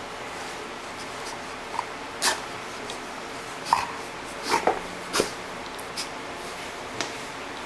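Golden retriever playing on its back on a foam mat: a string of short, sharp dog noises and scuffles, about eight in all, the loudest between about two and five and a half seconds in, over a steady faint hiss.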